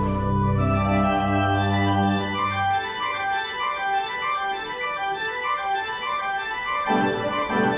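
Pipe organ playing sustained chords. Deep pedal bass notes are held for the first few seconds and then drop out, leaving the higher manual notes moving over a thinner texture. The bass returns briefly near the end.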